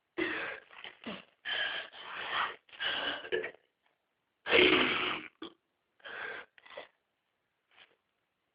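A person making a run of short, breathy vocal sounds, about eight in quick succession, the loudest and longest about four and a half seconds in, then a few faint ones.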